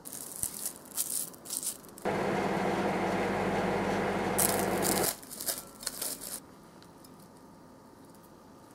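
Plastic cling wrap crinkling as it is handled over a glass bowl, then a microwave oven running at 500 W with a steady hum for about three seconds that stops suddenly, followed by more crinkling of the wrap.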